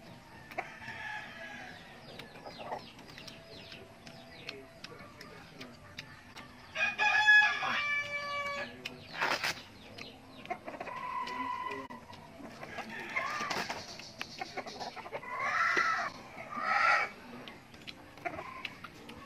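A rooster crows once, loudly, about seven seconds in, a call lasting about a second and a half. Further chicken calls follow between about thirteen and seventeen seconds.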